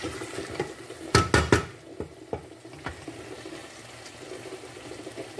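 Wooden spoon stirring a thick doro wat stew in a stainless steel pot, with a wet, squelching stir throughout. About a second in there are three quick loud knocks of the spoon against the pot, then a few lighter clicks.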